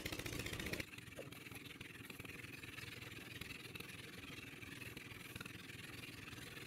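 An engine running steadily, with a fast even pulse for the first second, then a sudden drop to a fainter steady hum.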